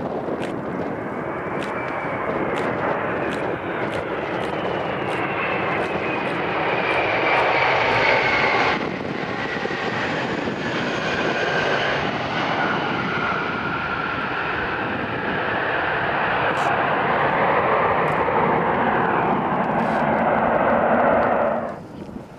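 Jet engines of a McDonnell Douglas MD-11 trijet landing: a loud, steady jet noise with whining tones that fall slowly in pitch, easing about a third of the way in, then swelling again before cutting off suddenly near the end.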